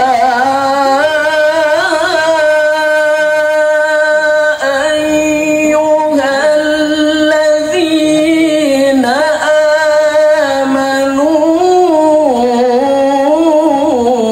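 A male reciter chanting the Quran in the melodic tilawah style. One voice holds long, ornamented notes that waver and slide between pitches, with a brief breath-break about four and a half seconds in.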